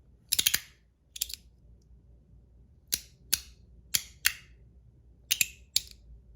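Ant Design S-Nano zirconium magnetic fidget slider being slid back and forth, its plates snapping into place with sharp metal clicks, mostly in quick pairs, with a pause of well over a second after the first few.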